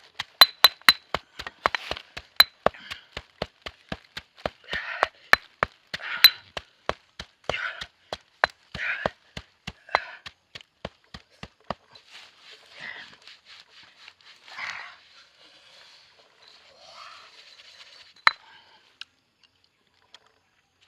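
A rapid, even series of sharp taps or knocks, about three a second, for about twelve seconds, mixed with bouts of rustling. The taps stop and only rustling goes on for several more seconds before it dies away.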